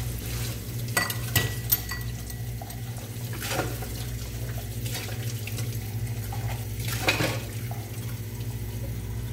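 Dishes being washed by hand at a kitchen sink: tap water running steadily over a constant low hum, with clinks of plates and cutlery, a quick cluster about a second in and single ones near the middle and later.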